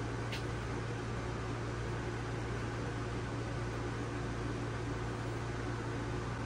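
Steady fan hum with an airy hiss, and one faint click shortly after the start.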